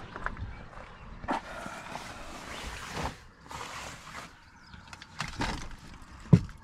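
Gear being handled in a pickup truck's back seat: a jacket rustles and rods and bags are shifted, with small knocks, and one solid thump about six seconds in.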